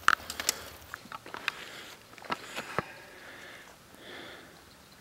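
Handling noise from a fishing keepnet and a plastic bag of carp: soft rustling with a few sharp knocks in the first three seconds.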